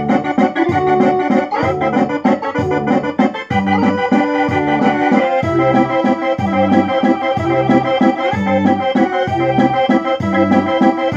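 Electronic barrel organ playing a tune read from a perforated cardboard music book by an optical reader, its organ voices coming from a loudspeaker rather than the decorative front pipes. A melody runs over a steady, regular bass-and-chord accompaniment.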